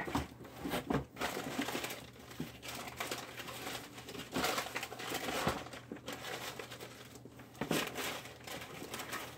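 Irregular rustling and crinkling with scattered clicks and knocks as things are rummaged through and handled.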